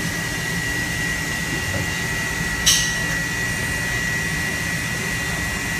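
Steady workshop background noise, an even rush with a thin, steady high whine, while the new steering-column locking pin is worked into place; a single short sharp click sounds a little over two and a half seconds in.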